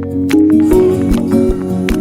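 Background music: plucked guitar over held notes, with a soft steady beat.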